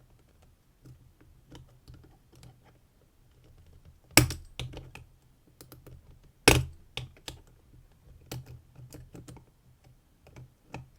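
Small metal clicks and scrapes of a tool working at a lock cylinder's circlip to pry it off, with two louder sharp clicks about four and six and a half seconds in.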